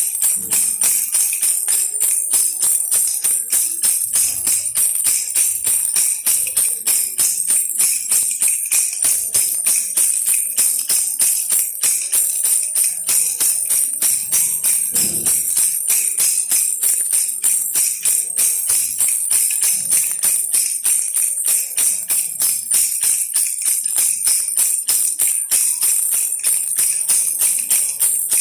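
A baby's toy rattle shaken steadily and fast, a bright jingling rattle at about three to four shakes a second.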